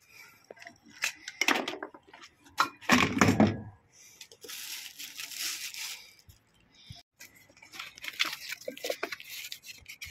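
A couple of heavy handling knocks in the first few seconds, then cardboard packaging and plastic wrapping rustling and tearing as a new pump is unboxed, with scattered crackles near the end.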